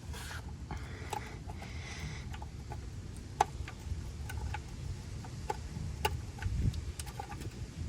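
Scattered light metallic clicks and ticks of a socket wrench working on the oil drain plug of an E36 BMW's oil pan, irregular and a few per second, with one sharper click about three and a half seconds in.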